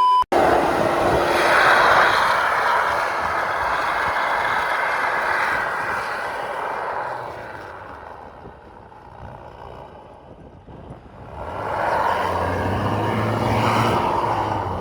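Mitsubishi L200 pickup driving off-road, its engine and tyres making a loud rushing noise. The noise fades after about seven seconds and swells again a few seconds before the end, with a low engine hum.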